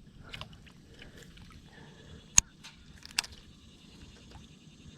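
Quiet outdoor background with two sharp clicks a little under a second apart, near the middle, and a few fainter ticks.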